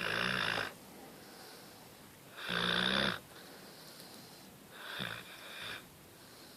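A pet dog snoring in its sleep: three snores about two and a half seconds apart, the third one softer.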